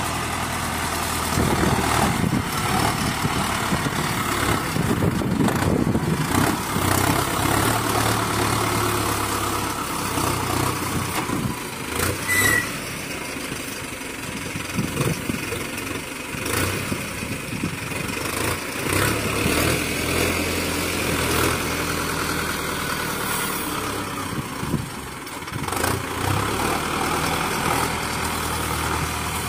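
Diesel tractor engine running under the load of a tractor-mounted front loader scooping and lifting sand, its revs rising and falling.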